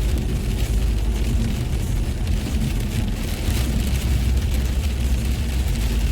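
Car driving in heavy rain: a steady low rumble of road and engine with the hiss of rain and spray over it.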